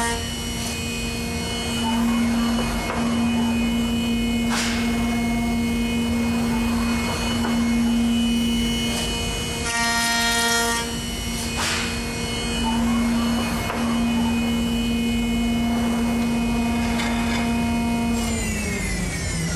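CNC router spindle running with a steady high whine as its bit machines a wooden post on a rotary device. Two brief cutting rasps come about four and a half and eleven and a half seconds in, and near the end the whine falls in pitch.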